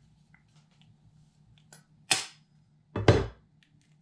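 A raw egg being cracked with a kitchen knife over a bowl: two sharp knocks about a second apart, the second a quick double strike.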